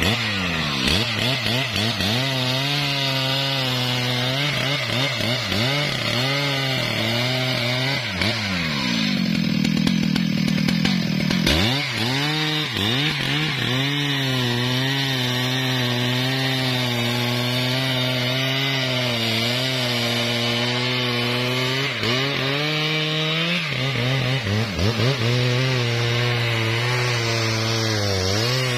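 Large professional chainsaw at full throttle, cutting into the base of a thick trembesi (rain tree) trunk. The engine pitch keeps dipping and recovering as the chain loads up in the wood, and it drags down lower for a couple of seconds about nine seconds in.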